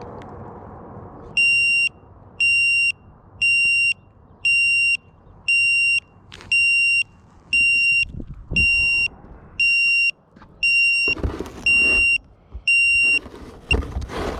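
An electronic beeper sounding a steady, high beep about once a second, twelve times in all, each beep about half a second long. Low thumps and rustling come in between the later beeps and near the end.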